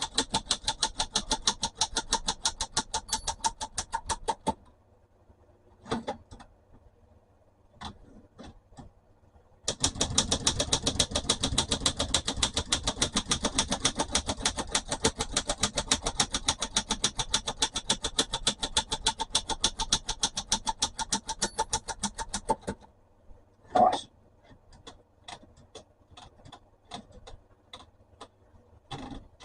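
Manual typewriter's carriage mechanism ratcheting: a fast, even run of clicks, about ten a second, stops about four seconds in. A few loose clicks follow, then a second long run of clicks, then a single loud clack a second later. The clicking comes from the carriage running under its newly re-tensioned mainspring and drawband.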